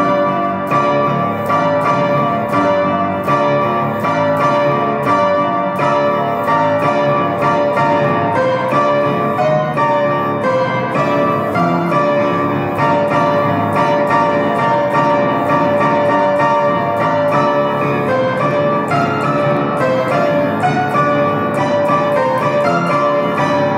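Instrumental keyboard music: a continuous stream of notes at an even level.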